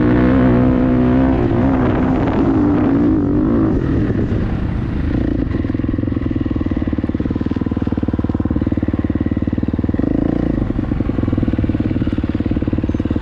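Dirt bike engine running on a trail ride, its pitch rising and falling with the throttle for the first few seconds, then holding a steady pace.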